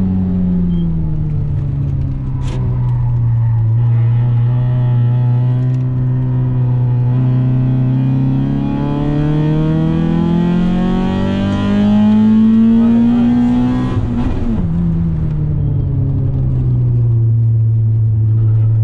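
Small hatchback's engine heard from inside the cabin while lapping a track. It runs steadily, then climbs in pitch under acceleration for several seconds before dropping sharply about 14 seconds in, and settles steady again.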